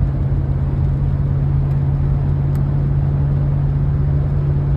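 Steady road and engine noise inside a four-wheel-drive vehicle's cabin, cruising at highway speed: an even low drone.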